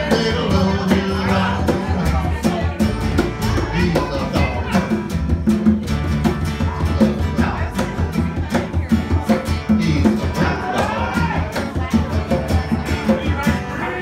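Live acoustic band playing an upbeat late-1950s rock-and-roll song: a man and a woman singing a duet over strummed acoustic guitar, plucked upright bass and a conga drum keeping a steady beat.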